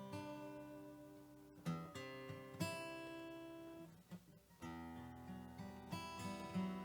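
Acoustic guitar music: chords ring out and fade, there is a brief lull a little after four seconds in, then quicker notes follow.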